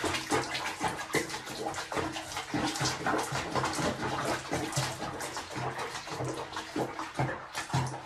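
Water splashing and sloshing in a small basin around a cat being bathed, in quick, irregular splashes.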